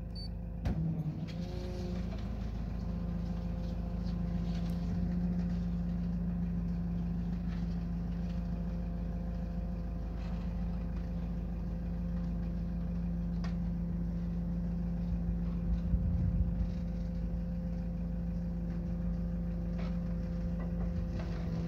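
Iveco Daily tow truck's engine running with its hydraulic pump driving the tilt-and-slide flatbed as it slides back and tilts down: a steady hum with a steady whine over it. A short knock about a second in.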